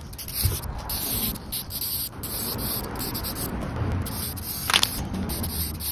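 Short hisses from an aerosol spray-paint can over steady outdoor background noise.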